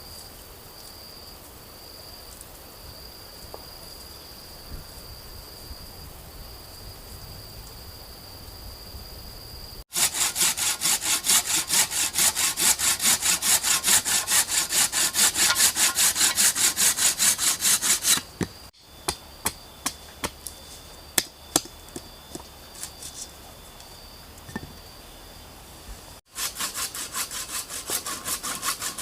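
A steady high insect trill, then a hand saw cutting wood in quick, even back-and-forth strokes, about three a second. After a sudden break come a few scattered knocks with the insect trill again, and the sawing starts again near the end.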